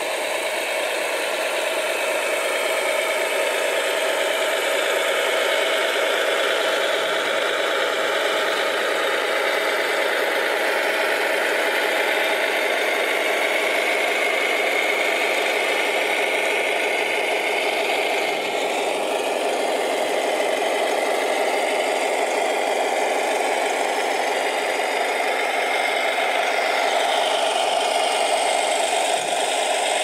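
Radio-controlled model construction machines, a scale Volvo L250G wheel loader and a Grand Hauler truck, running together: a steady engine-like drone with rattling. The pitch rises and falls a couple of times, around the middle and again near the end.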